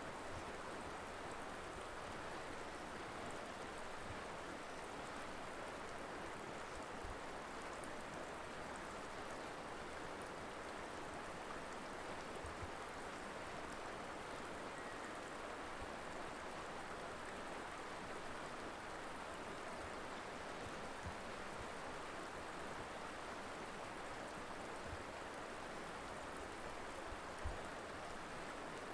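Mountain river flowing: a steady rush of water, with a few brief low thumps, the strongest near the end.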